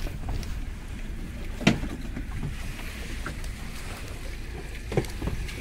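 Boat motor running with a steady low rumble, with a short knock about a second and a half in and a smaller one near the end.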